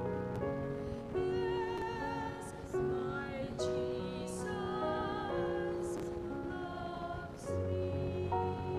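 Mostly female church choir singing a hymn in long, held notes with vibrato, over keyboard accompaniment.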